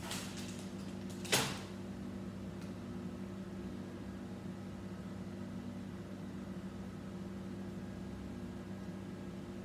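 Small handling noises of Lego pieces and the paper instruction magazine at a table, the loudest a single short sharp noise about a second and a half in, over a steady low hum.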